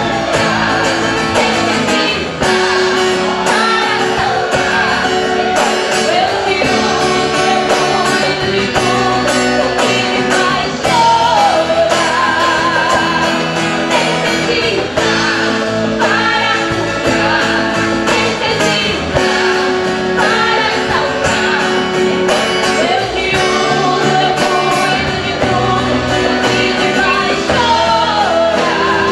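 A live worship band playing, with a voice singing over guitar and keyboard-like sustained chords, echoing in a large hall.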